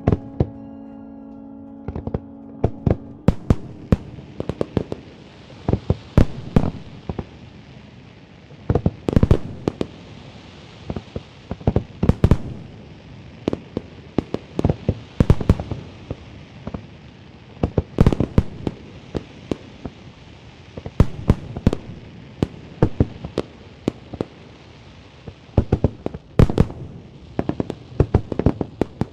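A fireworks display: a long series of sharp bangs and pops, many coming in quick clusters, over a steady high hiss.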